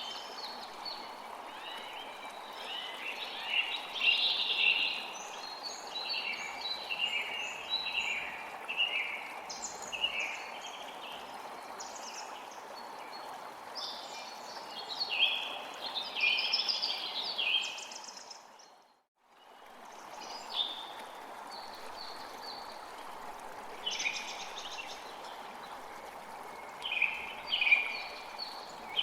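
Steady rain falling, with many birds chirping and calling over it. About two-thirds of the way in, the whole sound fades out for about a second and then fades back in.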